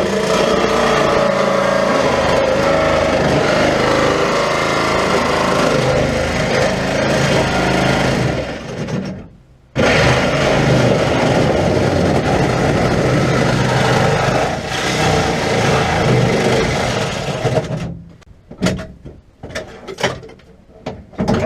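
Reciprocating saw cutting through a car's steel body shell. It runs for about eight seconds, stops briefly, starts again and cuts for another eight seconds, then stops, followed by a few separate clanks and knocks near the end.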